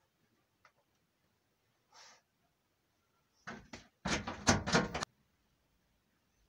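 A quick run of sharp knocks and clatter, a pair of knocks followed by a dense rattling lasting about a second, after a faint click and a soft rustle.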